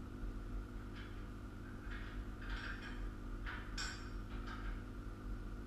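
Steady low hum under a few short scrapes and clinks of hands and tools working on a steel sawmill frame, one of them, about four seconds in, with a brief metallic ring.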